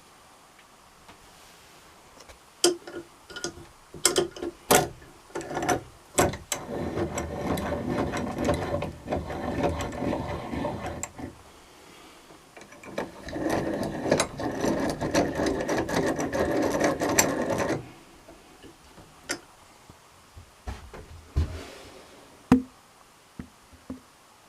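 A small geared or ratcheting mechanism whirring in two runs of about four to five seconds each, with scattered clicks before and after.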